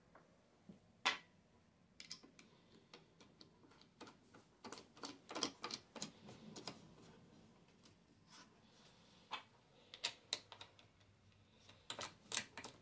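Scattered light clicks and taps of small jig parts being handled and fitted onto a wooden slider rail. A sharp single click comes about a second in, followed by irregular clusters of quicker taps.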